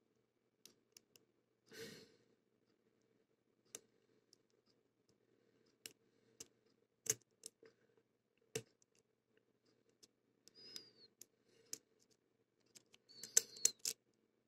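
Faint, scattered clicks and small ticks of a pick and tension wrench working the pin-tumbler cylinder of a CITY ISEO padlock, with a quick cluster of clicks near the end.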